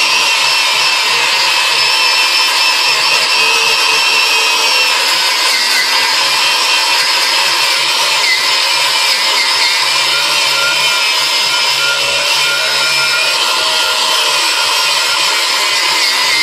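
Battery-powered Ryobi angle grinder running a wire brush against a steel lawnmower blade to clean it: a loud, steady whine with a scratchy rasp that wavers slightly.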